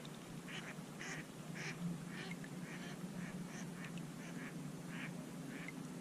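Waterfowl calling, a run of short calls about two or three a second, over a low steady hum.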